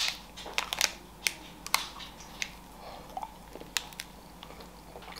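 Close-miked biting into a chocolate-glazed curd cheese bar with condensed-milk filling, then chewing it with scattered sharp, wet mouth clicks.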